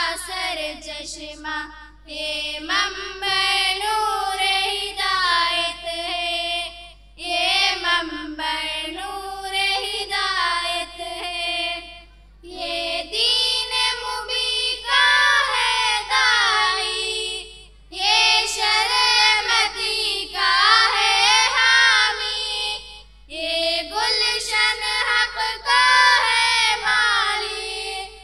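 Girls singing a school tarana (anthem) together into a microphone, unaccompanied, in phrases of a few seconds each with short pauses for breath between them.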